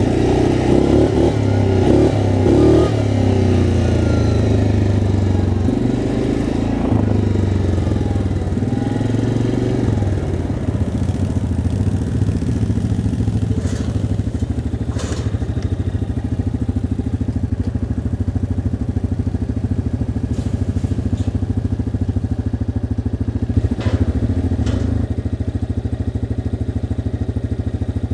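ATV engine running close by as the quad rolls along, then settling to a steady idle about ten seconds in. A few sharp knocks come later on.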